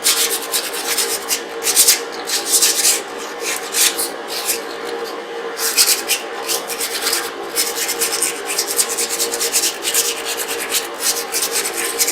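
Emery cloth rubbed back and forth over a metal surface in quick, uneven rasping strokes, cleaning it before the axle goes in.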